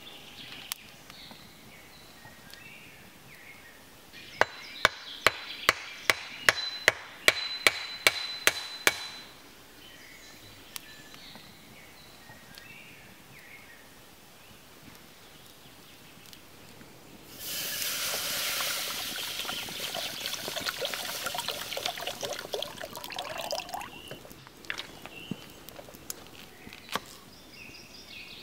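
About a dozen sharp knocks, roughly two a second, then several seconds of water pouring into a cooking pot.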